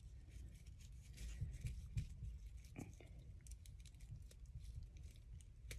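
Faint handling noises as fingers press the metal clamp of a wrist-corsage bracelet around rose stems: scattered small clicks and rustles over a low steady hum.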